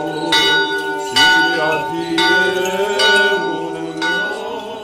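Church bell struck about once a second, each stroke's ringing tones carrying on into the next.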